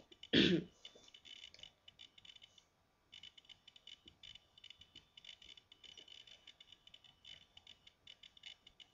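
A person coughs once, briefly, about half a second in. After that there is only faint, irregular high-pitched crackling and ticking, which stops for a moment about three seconds in.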